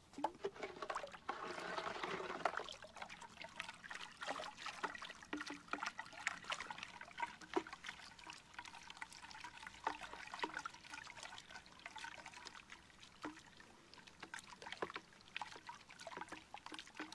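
Milky pool flocculant mix swirling and gurgling in a plastic bucket around the end of a white pool pipe, with constant small splashes and bubbling, strongest near the start.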